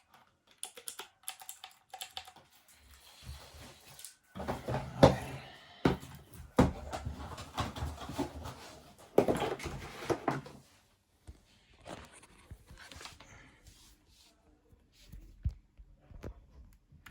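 Rustling of packaging with scattered clicks and knocks as a compact mechanical keyboard is taken out and handled, the busiest handling in the middle stretch.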